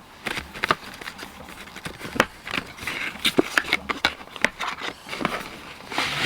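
Hands opening a GoPro Hero 9 retail box: irregular small clicks and taps with light rustling of the packaging.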